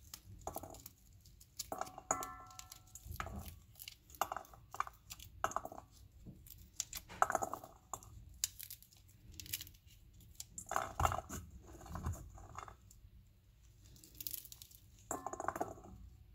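Pomegranate rind and pith torn apart by hand, with the seeds breaking loose and dropping into a metal bowl in irregular crackles, snaps and small clicks.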